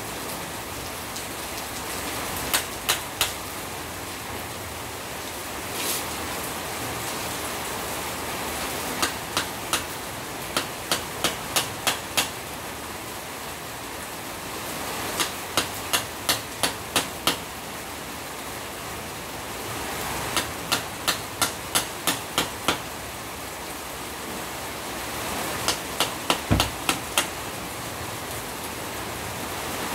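Hammer blows on a chisel cutting through the burnt copper windings of a three-phase electric motor's stator, to strip the old coil for rewinding. Sharp strikes come in runs of three to seven, about three a second, with pauses between, over a steady hiss of rain.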